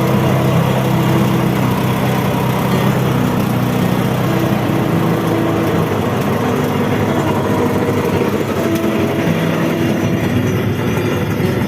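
Small boat engine running steadily, its pitch shifting a few times.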